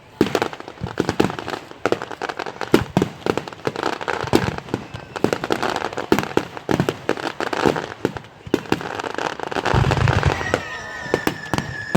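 Fireworks display: a rapid run of sharp cracks and bangs from bursting shells, several a second, with a deeper boom about ten seconds in.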